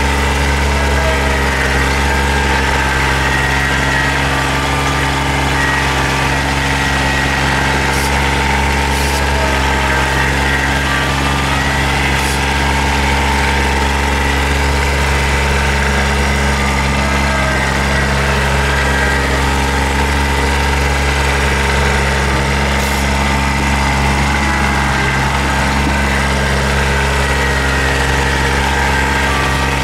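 Kubota BX compact tractor's three-cylinder diesel engine running at a steady, even speed, with a few faint clicks.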